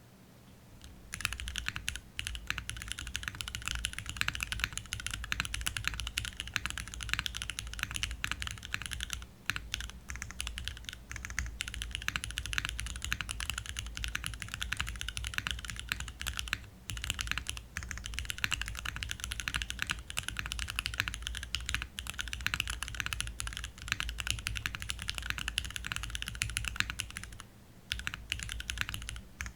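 Fast continuous typing on an o-ring mounted Tofu60 Redux mechanical keyboard with lubed-feel Cherry MX2A Black linear switches, aluminium plate and GMK doubleshot keycaps: a dense run of key clacks with a deep low thud under each stroke, starting about a second in and broken by a few brief pauses.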